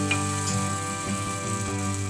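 An egg-coated sandwich sizzling as it fries in hot fat in a pan, with background music playing over it.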